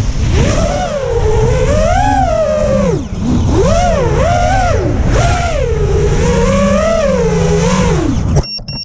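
Demon RC Aura FPV drone's motors and propellers whining, the pitch swooping up and down about once a second with the throttle, over a rush of wind on the onboard microphone. The motor sound cuts off abruptly near the end, followed by a few short high ticks.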